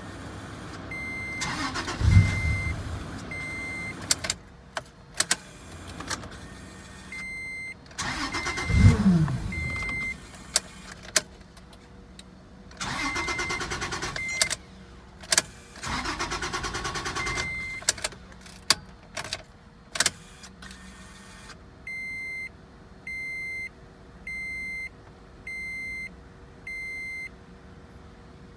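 Car engine cranking on the starter in several tries, firing briefly about two seconds in and again near nine seconds, then dying each time instead of running: it won't start after a new ECU was fitted. A dashboard warning chime beeps through the tries, with sharp clicks between them and five even beeps about a second apart near the end.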